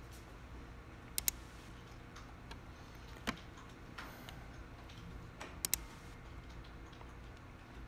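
Quiet room tone with a low steady hum, broken by a few sharp clicks: a close pair about a second in, single clicks near three and four seconds, and another close pair just before six seconds.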